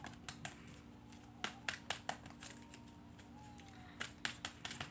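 Tarot cards being handled and laid out by hand: irregular light snaps and taps, several in quick clusters, over a steady low room hum.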